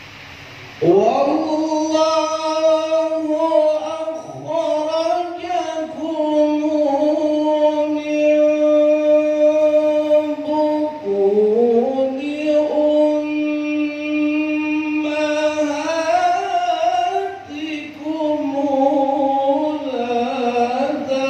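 Man's voice reciting the Quran in melodic tilawah style, holding long ornamented notes that slide slowly between pitches. The voice comes in about a second in.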